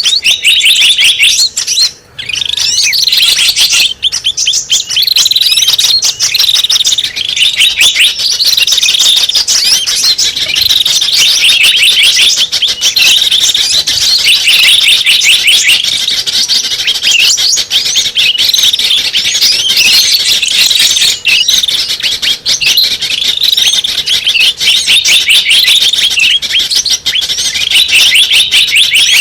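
Dense, overlapping high-pitched chirps and trills of small songbirds, a continuous bird-lure (pikat) call recording, with a brief break about two seconds in.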